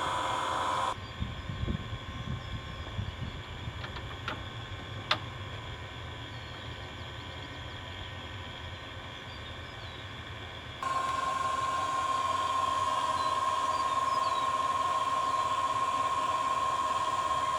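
Steady mechanical hum with a high whine, which drops out abruptly about a second in. A quieter low rumble with a few sharp clicks follows, and the hum and whine come back abruptly near the eleven-second mark.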